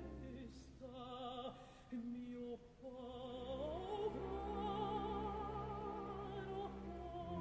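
Operatic soprano singing with wide vibrato over orchestral accompaniment, gliding up about halfway through to a long held note.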